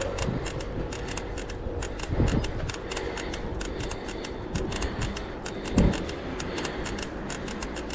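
Road bike being ridden on a tarmac road: low wind rumble on the microphone with a light, rapid rattle of clicks, and two thumps, about two seconds in and a louder one near six seconds.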